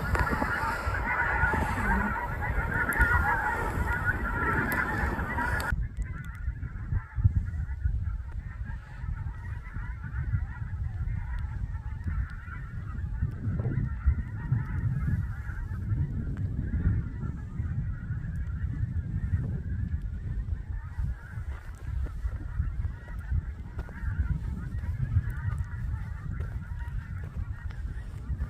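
A large flock of gulls calling continuously, many overlapping cries, over a steady low rumble.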